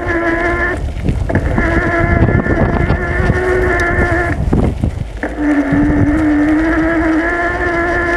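Bicycle rolling along a gravel track: low rumble from the tyres and wind on the microphone, under a loud steady whining tone with several overtones. The tone cuts out twice and comes back lower in pitch about five seconds in.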